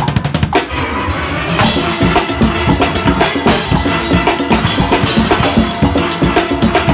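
Drum kit played in a steel band's engine room (rhythm section): a fast, driving beat of kick, snare and cymbals over the band's music. The cymbals come in fuller about a second and a half in.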